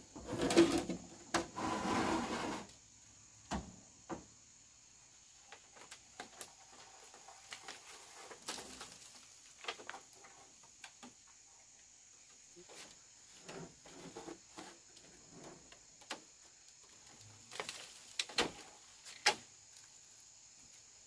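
Scattered light knocks and clicks of wood being handled, with a louder stretch of sound in the first three seconds.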